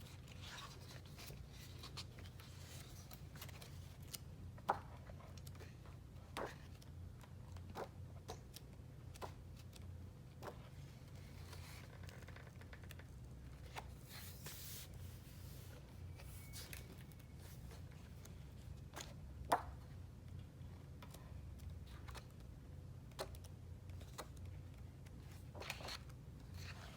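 Quiet handling of cosmetic packaging: scattered small clicks and taps, with a brief rustle about halfway through, over a low steady hum.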